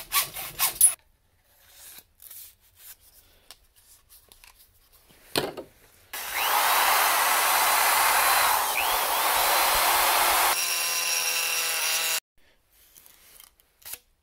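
A hacksaw rasps back and forth through PVC pipe for about a second. A power drill then runs steadily for about six seconds, boring a hole through PVC pipe with a twist bit, and its sound changes to a steady whine for its last second and a half before stopping. Small knocks and clicks of parts being handled fall between and after.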